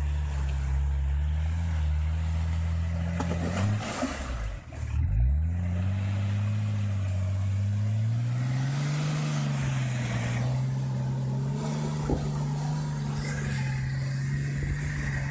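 Nissan Patrol 4x4's diesel engine pulling under load through a shallow river, its pitch rising and falling with the throttle; about four and a half seconds in it dips sharply and then revs back up.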